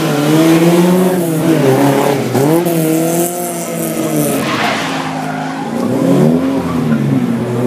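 Mk1 Ford Cortina's engine revving up and down through tight manoeuvres, with tyres squealing and skidding about two to five seconds in.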